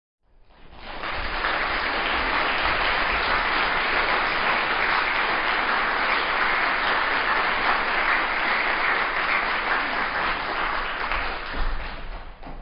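Audience applauding: the clapping builds up quickly within the first second, holds steady, and thins out near the end.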